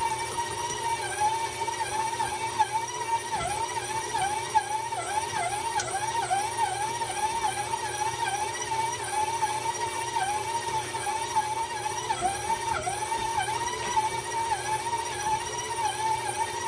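KitchenAid stand mixer's motor whining steadily while its dough hook kneads a ball of bread dough to develop the gluten. The pitch dips briefly about twice a second as the hook drags the dough round the bowl and loads the motor.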